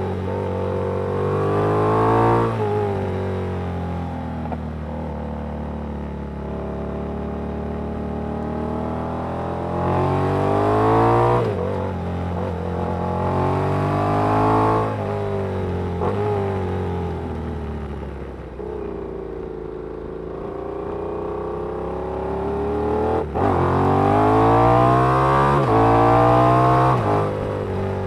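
Yamaha MT-07's 689 cc parallel-twin engine breathing through a Danmoto aftermarket exhaust, heard from the saddle, running hard up the revs and easing off again in several rising pulls, the longest and loudest near the end.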